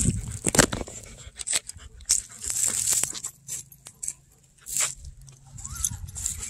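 A golden retriever sniffing and breathing close to the microphone: irregular short hissy snuffles among sharp clicks and rustles.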